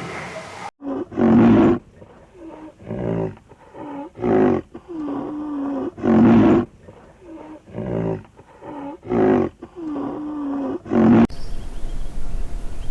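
Lion roaring in a bout of about seven deep grunting calls, roughly one every second and a half, each followed by a quieter drawn-in breath. The bout cuts off abruptly near the end.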